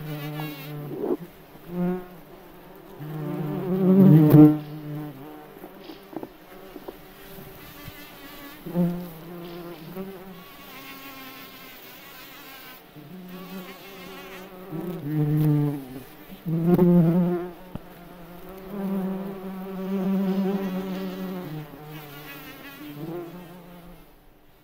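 Bumblebees buzzing in flight, a low droning hum that swells loud several times as a bee comes close, then fades as it moves off.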